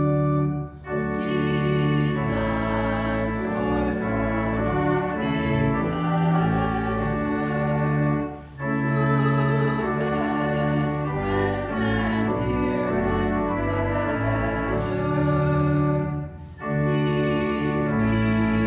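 Hymn music with held chords, in phrases of about eight seconds, each ending in a brief pause.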